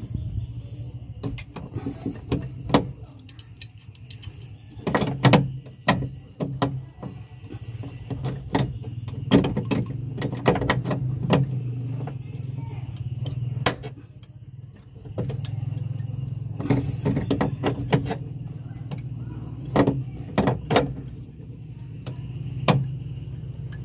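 Hand tools clicking and clinking against metal in irregular clusters while a leaking clutch hydraulic line fitting is tightened, over a steady low hum.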